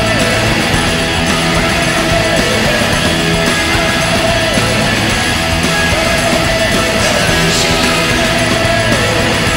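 Loud rock music with guitars and singing, the goal song that follows the Vancouver Canucks goal horn.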